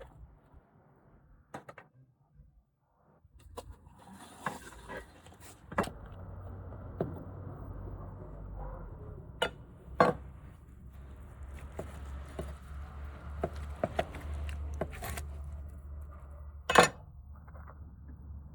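Scattered clinks and knocks of dishes and cutlery, the loudest a sharp clack near the end, over a low steady rumble that starts about six seconds in.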